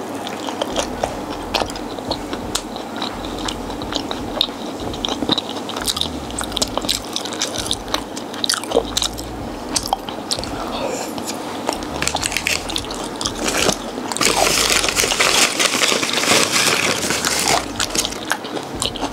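A person biting and chewing food with repeated small crunches. A louder, noisier spell lasts a few seconds, beginning about fourteen seconds in.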